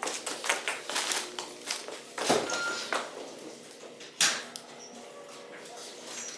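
Footsteps on a hard tiled floor and the handling of full reusable shopping bags being set down, a quick run of clicks and knocks with two louder thumps, the last about four seconds in.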